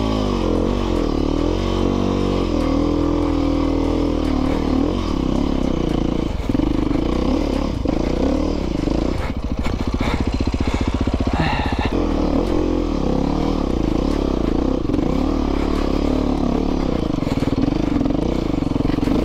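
Dirt bike engine revving up and down unevenly, with a few sharp knocks about halfway through.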